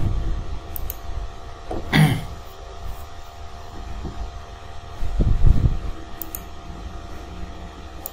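Steady background hum like a fan running close to the microphone, with a few faint computer-mouse clicks. A brief louder sound comes about two seconds in, and soft low thumps come near the start and again about five seconds in.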